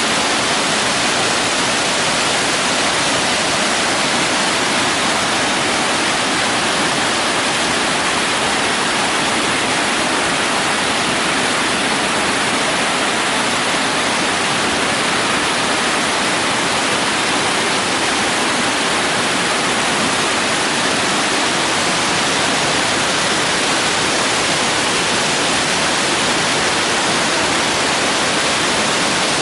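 Waterfall: a loud, steady rush of falling water that doesn't change.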